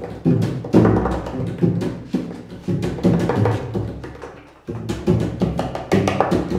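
Live free-improvised music made of irregular struck, pitched knocks that ring briefly at low pitch, about two a second, with a short lull about four and a half seconds in.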